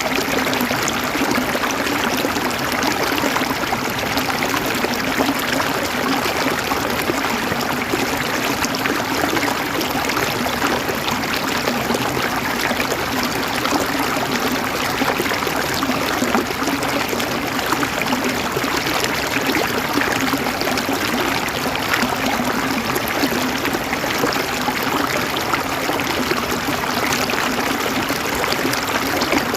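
River water flowing and babbling over stones, a steady rushing that neither rises nor falls.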